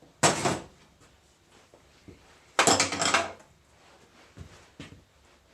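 Metal parts of a hydraulic control valve being handled during disassembly: two short clattering scrapes, the second about two seconds after the first, then a few light knocks.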